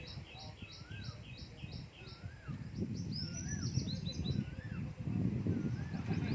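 Wind gusting, with birds calling over it: a quick run of high chirps, about four a second, that stops after about two seconds; a short rising-and-falling whistle repeated about once a second; and a brief warbling phrase midway.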